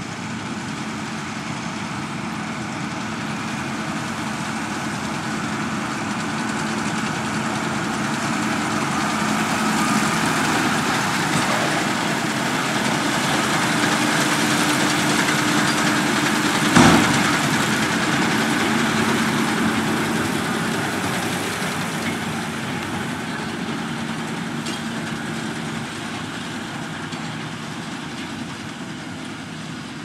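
New Holland T7.270 tractor engine running steadily with a New Holland Roll-Belt 190 round baler working behind it. It grows louder as it passes close about halfway through, then fades as it moves away. A single sharp clunk comes from the machinery near the middle.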